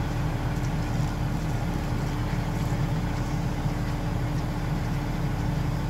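Ready-mix concrete truck's diesel engine running steadily: a constant low drone with a steady hum above it.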